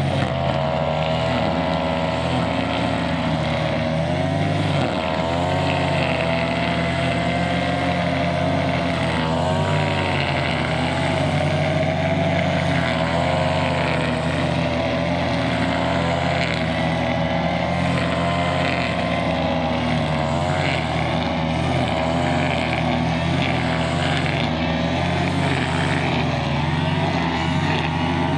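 Two-stroke brushcutter engine running at high revs while cutting grass, its pitch wavering up and down with the load.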